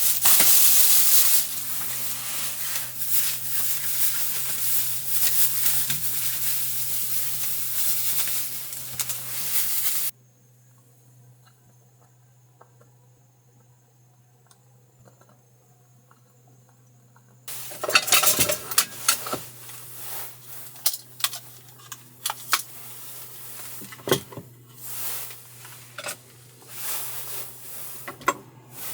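Loud steady hiss for about ten seconds that cuts off suddenly, a faint quiet stretch, then irregular light clicks and clatter of small hard objects.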